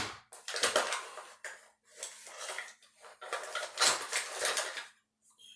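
Makeup brushes and other small items clattering and clicking against each other as they are pulled out of a bag, in several separate bursts of rattling.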